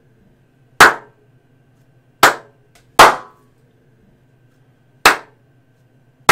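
Five single hand claps at uneven intervals, each sharp and followed by a short fading ring of room echo: a clap test of a small room's reverberation as acoustic foam is fitted.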